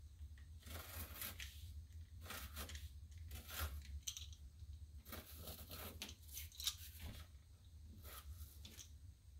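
Pounce wheel rolling along a paper sign pattern laid over cardboard, its pins perforating the paper in a run of short, scratchy strokes, one after another, over a low steady hum.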